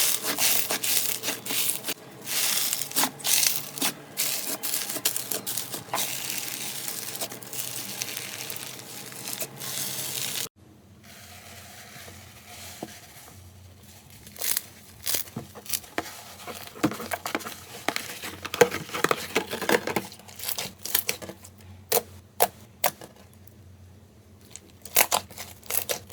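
Slime being squeezed and worked by hand, giving dense crackling and crunching. About ten seconds in, it cuts to a quieter stretch of scattered clicks and pops.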